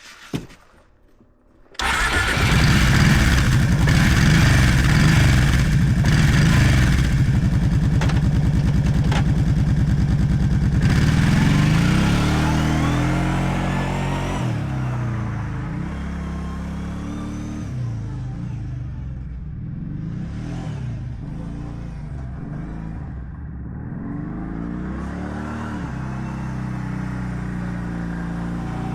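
Kawasaki Prairie 650 V-twin ATV engine, breathing through a muffler modified to be a little louder, comes in abruptly about two seconds in and runs loud and steady. From about eleven seconds its pitch rises and falls as it pulls away and grows quieter.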